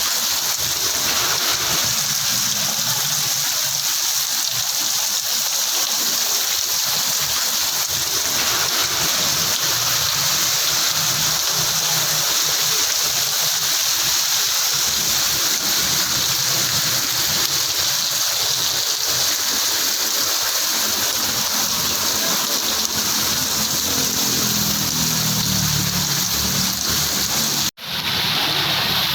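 Heavy rain pouring down steadily as a dense, even hiss, with the sound cutting out for an instant near the end.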